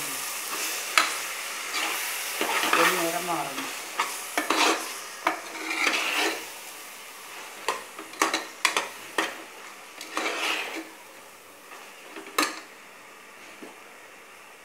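A ladle scraping and knocking against a pressure cooker pot as vegetables are stirred and sautéed in hot oil, over a steady frying sizzle. The strokes come irregularly, and the last knock is about twelve seconds in; the sizzle grows fainter near the end.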